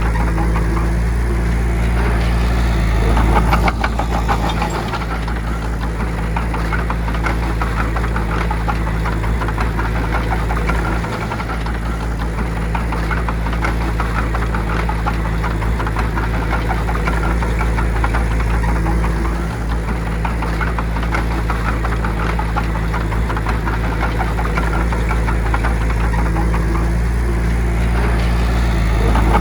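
Large diesel engine of heavy earthmoving equipment running steadily, with a continuous fine rattling clatter over the low engine note.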